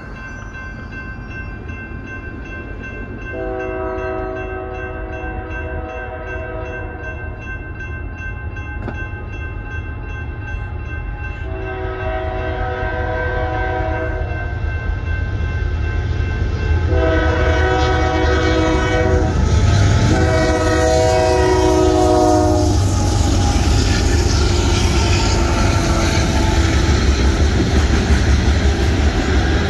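Union Pacific freight locomotive's horn sounding four long blasts for a grade crossing, the last two nearly back to back, over the rapid, even ringing of the crossing bell. From about two-thirds of the way in, the train rumbles and clatters across the crossing.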